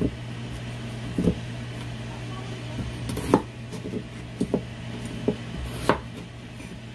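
Chef's knife cutting through red potatoes and knocking down onto a wooden cutting board: about seven separate chops at an uneven pace, over a steady low hum.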